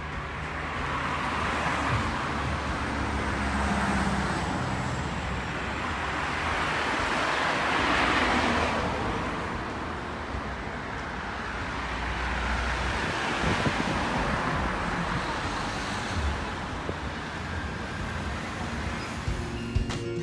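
Street traffic: several cars passing one after another, each swelling and fading, over a steady low road rumble.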